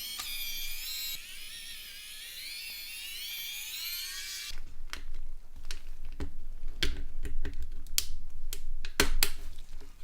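Small electric precision screwdriver whining as it drives out the phone's tiny screws, its pitch wavering as the load changes. The whine stops about four and a half seconds in, followed by a run of sharp clicks and taps from small plastic and metal phone parts being handled.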